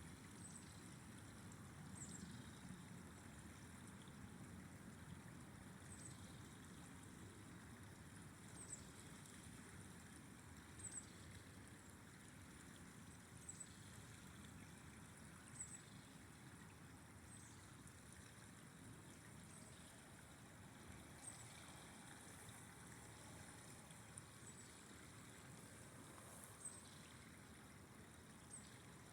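Faint steady rush of a flowing river. Short high ticks sound every second or two over it.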